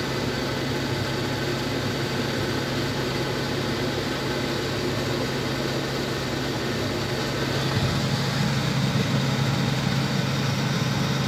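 Case IH JX100 Maxpro tractor's diesel engine idling steadily, heard from inside the cab while the baler is stopped for cleaning. The hum grows a little louder about eight seconds in.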